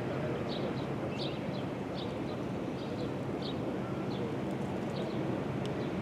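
A steady low mechanical hum, with short high bird chirps every half second or so; the siren is not sounding.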